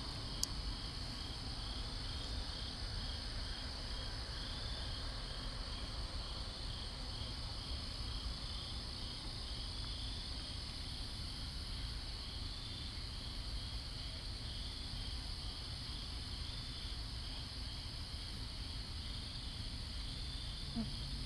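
Crickets chirping in a steady night chorus, a high pulsing trill that keeps on without a break, over a low steady rumble.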